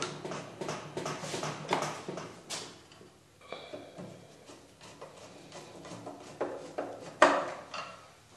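Screwdriver work on the wooden frame of a Singer treadle sewing-machine table: a run of quick clicks and scraping, then a short squeak about three and a half seconds in and scattered ticks, with a sharp knock near the end as the loudest sound.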